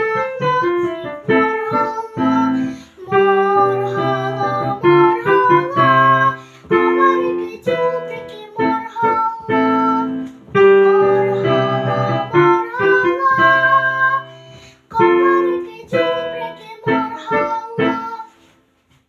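Piano playing a lively instrumental passage of a children's song, with rhythmic chords under a melody, ending shortly before the close.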